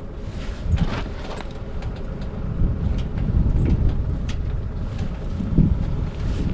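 Wind buffeting the microphone: an uneven low rumble that swells and eases, with a few sharp clicks and knocks scattered through it.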